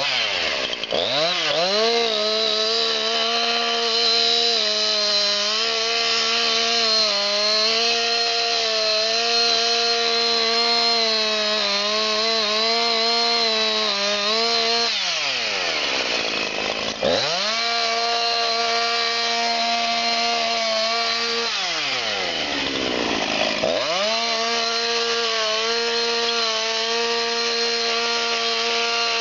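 Two-stroke chainsaw running at full throttle while cutting into a standing tree trunk. Its engine pitch climbs just after the start, then falls away and rises back to full revs twice, about halfway through and again a few seconds later, as the throttle is let off and reopened.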